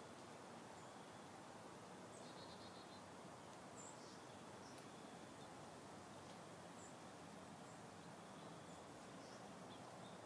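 Near silence outdoors: a faint steady hiss with scattered short, high, faint chirps from small animals, and a brief quick trill about two to three seconds in.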